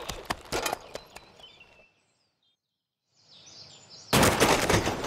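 Cartoon crash sound effect about four seconds in: a loud clattering smash, lasting about a second, as a kick scooter runs into a rock and its wheel breaks off. Before it, a run of quick taps fades out into a short silence.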